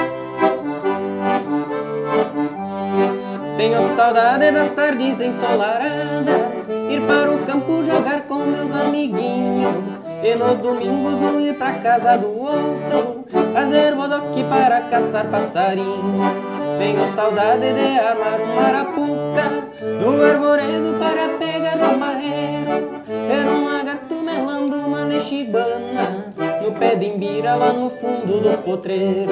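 Scala piano accordion played solo: a melody on the right-hand keys over a steady pulse of bass notes and chords from the left-hand buttons, in an unbroken run of music.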